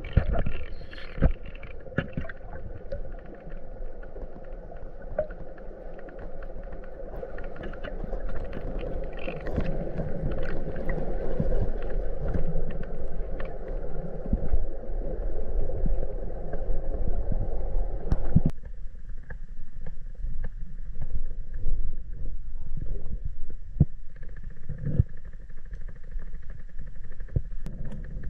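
Muffled gurgling water with scattered knocks and clicks. The sound changes abruptly about two-thirds of the way through to a thinner sound with more clicks.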